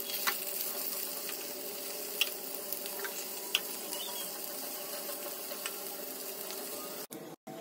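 Stuffed bitter gourds sizzling steadily as they shallow-fry in oil in a pan, with a few sharp clicks of a utensil against the pan as they are turned.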